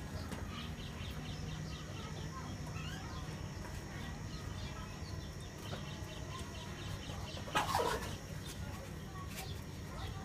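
Chickens clucking, with one short, loud squawk about eight seconds in.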